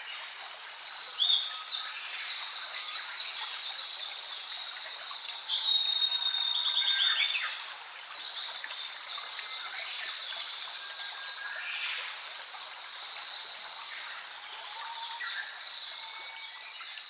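Wild birds singing in chorus: many overlapping chirps, trills and clear whistles over a steady background hiss, louder about a second in, around six to seven seconds and again around thirteen seconds.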